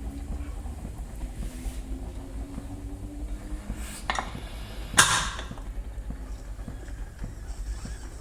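Pressure cooker on the stove: a steady low rumble, with a metallic clink about four seconds in and a louder sharp clank about a second later that trails off in a brief rush.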